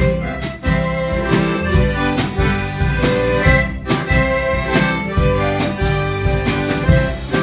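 Instrumental band music with a steady beat: held chords over a rhythmic accompaniment, with no singing.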